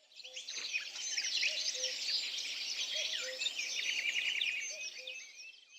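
A dense chorus of many small birds chirping and twittering over one another, fading in and then fading out.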